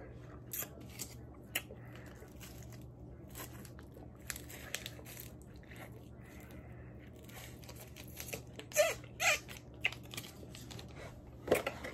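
Mouth sounds of eating a frozen freeze pop: scattered short crunches, smacks and clicks, busiest about nine seconds in and again near the end.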